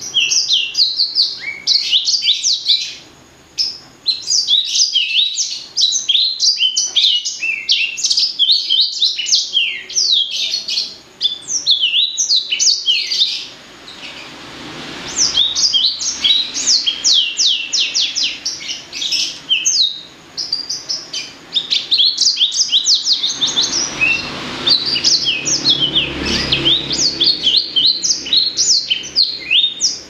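Blacksang, a hybrid of blackthroat and sanger finches, singing a long, fast song of high chirping notes, breaking off briefly a few times.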